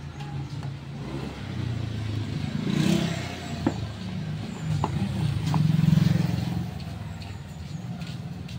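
A motor vehicle engine running, its low drone swelling twice, with a few sharp clicks in the middle.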